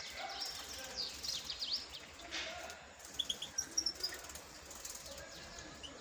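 European goldfinches chirping and twittering: a busy string of short, high, falling chirps in the first two seconds, then scattered single notes. There is a brief rustle about two and a half seconds in.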